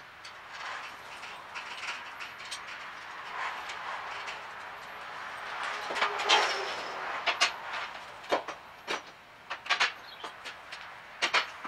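Metal clinks and knocks of a steel towbar being handled and lined up under a car's rear chassis: a scraping stretch about six seconds in, then a run of sharp metallic taps.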